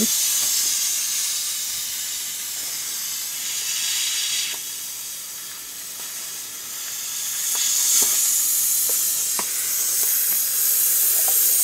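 Compressed air hissing steadily out of the compressor's tank, which is almost empty. The pressure switch is keeping the compressor unloaded, so the tank keeps venting. The hiss fades in the middle and grows again, with a few faint clicks.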